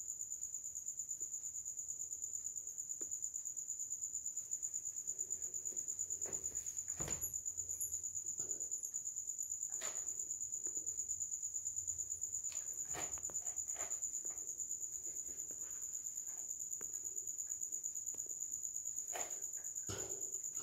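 Crickets trilling in a steady, high-pitched, continuous chorus. Now and then come soft rustles and light taps as a sock is pulled on.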